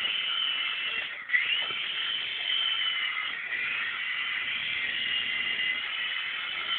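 Small electric RC helicopter (a V-Max metal 3-channel model) running, its motors and rotors giving a high whine whose pitch wanders up and down with the throttle. About a second in, the whine briefly dips and a sudden loud moment follows as it spins back up.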